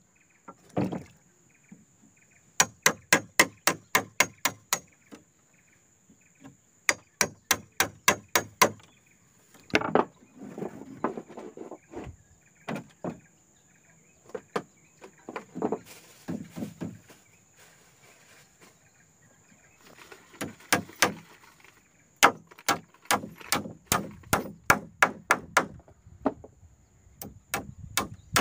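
A hand tool striking wood in quick runs of sharp blows, about four a second, six to ten at a time with pauses and some handling noise between runs. A steady high insect drone runs underneath.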